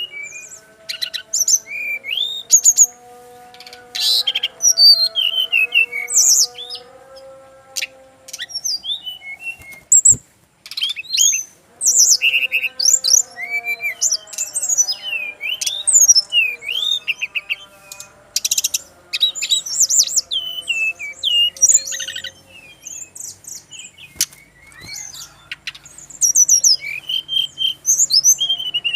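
Brown-chested jungle flycatcher (sikatan rimba dada coklat) singing a fast, varied string of high chirps and whistles, breaking off briefly about ten seconds in.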